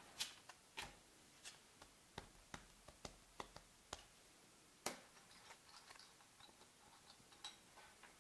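Faint, irregular clicks and taps of board-game pieces and cards being handled and set down on a tabletop game board, a dozen or so in all, the sharpest a little under five seconds in.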